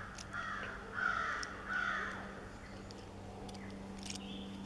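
Crow cawing: three caws in quick succession in the first two seconds, over a faint steady low hum.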